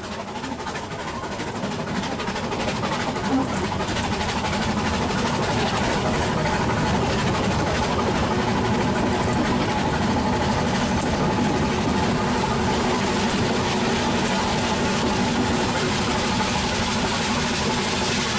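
Narrow-gauge train running on the Ffestiniog Railway, heard from the carriage right behind the steam locomotive: a steady rumble and rattle of wheels on rail. It grows louder over the first three or four seconds, then holds steady.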